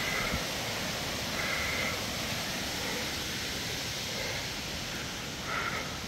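Steady rushing of a small forest waterfall and stream, with a bird giving three short two-toned calls a few seconds apart.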